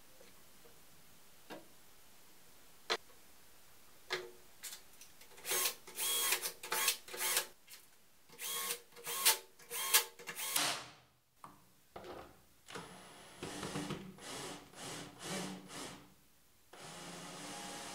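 Cordless drill-driver whirring in a run of short bursts, its pitch shifting from burst to burst, as screws are driven into the plastic parts; a few lone clicks come before it. Near the end a steady hum takes over.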